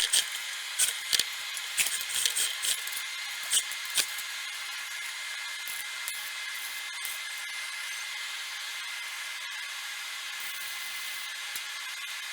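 Welder tack-welding rusted sheet metal on a tractor cab, crackling in short bursts for about the first four seconds, then a steady hiss.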